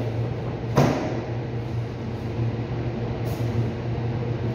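Steady low mechanical hum of a cutting room's ceiling-mounted refrigeration unit, with one sharp knock a little under a second in and a fainter tick later as meat is handled.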